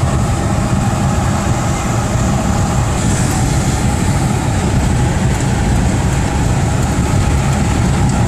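Steady engine and road noise heard from inside a four-wheel drive cruising along a road.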